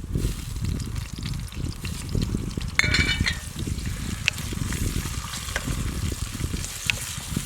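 Food frying and sizzling in a pot over a wood fire while it is stirred. There is a short ringing metallic clink about three seconds in.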